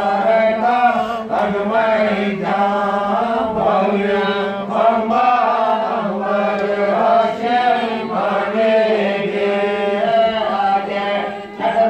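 A group of voices chanting Hindu mantras together, a continuous recitation held on one steady pitch with the syllables changing above it.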